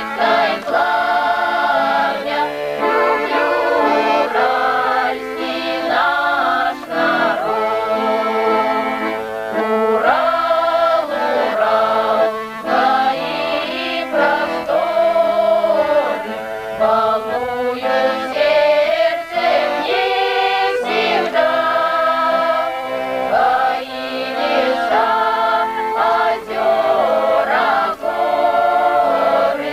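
Music: a choir singing, with continuous sung melody lines.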